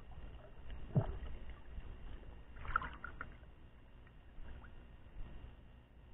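Water sloshing around a camera in shallow sea water, muffled, over a steady low rumble. There is a sharp low thump about a second in and a brief splash near three seconds, as the camera comes up through the surface.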